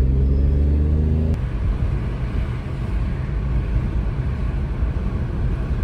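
Car on the move, a loud steady low rumble; a low engine drone is heard under it for about the first second and a half, then drops away, leaving the rumble.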